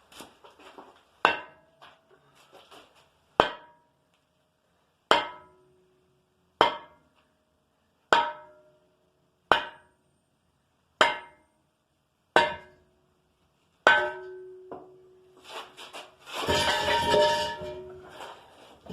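Hammer blows on the metal sections of an old furnace being knocked apart: nine hard, ringing clangs about a second and a half apart. Near the end comes a longer, noisier clatter of metal.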